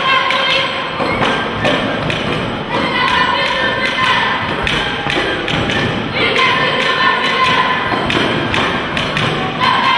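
Folk dance tune played on a wind instrument, over steady, rhythmic thumping from dancers stamping on a hard floor.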